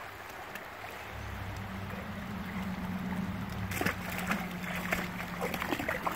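River water running steadily, then splashing from a little past halfway as a dog jumps off a log into the shallow water and wades, in a quick series of splashes.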